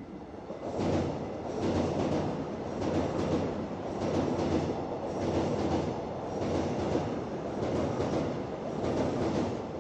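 Electric commuter train running past, its wheels clacking over the rail joints in a steady repeating rhythm over a continuous rumble.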